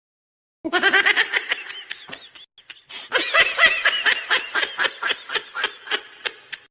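A laugh sound effect: high-pitched, rapid giggling in quick repeated cackles. It starts abruptly about half a second in, dips briefly in the middle, then picks up again and fades in shorter bursts near the end.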